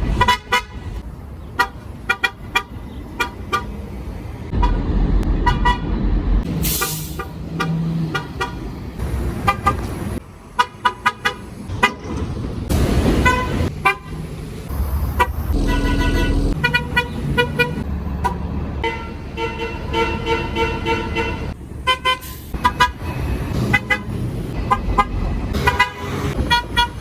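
City transit bus horns honking in many short toots, often in quick runs, with a few longer held blasts, over the low rumble of bus engines and street traffic.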